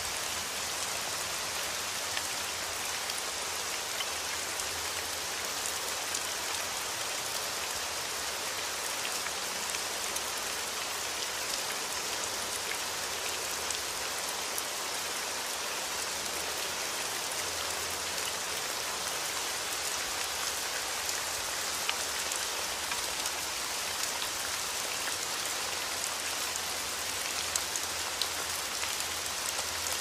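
Heavy rain falling steadily on trees and leaves: an even hiss with scattered sharper drop hits.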